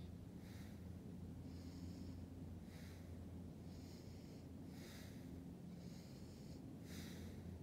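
Quiet rhythmic breathing, soft hissy breaths alternating in and out about once a second, over a low steady hum.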